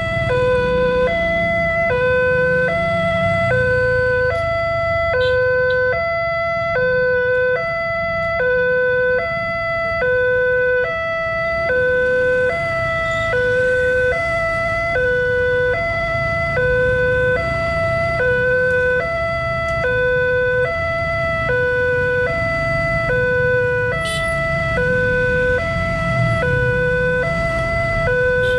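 Railway level-crossing warning alarm sounding a steady two-tone signal: a high and a low tone alternating evenly, about one pair a second. It means a train is approaching and the crossing is closed. Low traffic rumble runs underneath.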